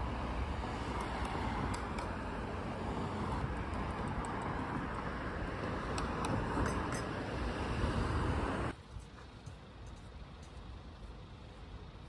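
Steady road traffic noise, heavy in the low end, cutting off abruptly about three-quarters of the way through to much quieter outdoor ambience.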